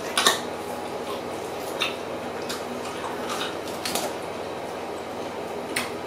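Eating by hand at a table: a few short clicks and clinks of fingers and food against ceramic plates, with soft wet squelching of food being handled and chewed.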